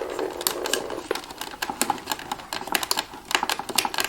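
Irregular light clicks and rattles of a UV fluorescent tube being gripped and twisted in its plastic lamp holder to lock it into place.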